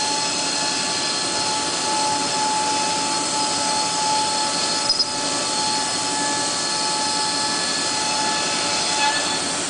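CNC router cutting wood, its spindle whine over the steady drone of the vacuum hold-down pump and dust collector, with a sharp click about five seconds in.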